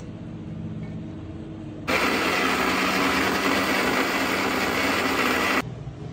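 Star National mixer grinder running at a steady whir, grinding boiled spinach into a paste. It starts suddenly about two seconds in and cuts off shortly before the end.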